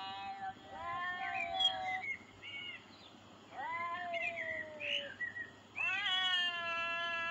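Tabby cats yowling at each other in a standoff: a run of long, drawn-out wavering yowls with short breaks between them, the last one sliding up sharply and then held. This is territorial threat yowling, the warning before a cat fight.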